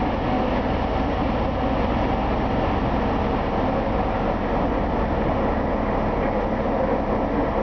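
Steady running noise of a passenger train moving slowly through an underground station, heard from on board.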